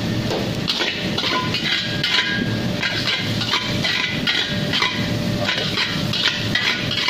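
Metal wok spatula scraping and clanking against a wok while fried rice is stir-fried, in repeated strokes about two to three a second with a light metallic ring, over a steady low rumble.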